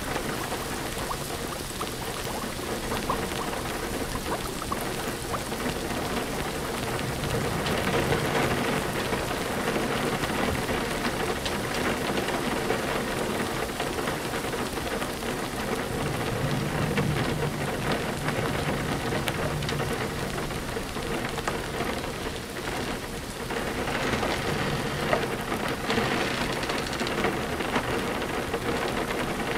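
Steady heavy rain falling on a surface, a dense continuous patter, with low rumbles of thunder rising and fading in places.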